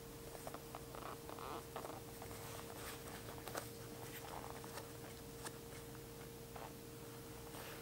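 Faint rustling, rasping and small clicks of hand-stitching thick neoprene: a curved needle gripped with pliers and pushed and pulled through the fabric, and thread drawn through after it.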